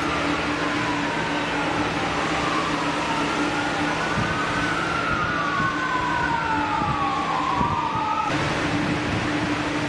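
Two emergency-vehicle sirens wailing at once, their pitches gliding slowly up and down and crossing, over a steady low engine hum. The sirens cut off abruptly about eight seconds in, leaving the hum.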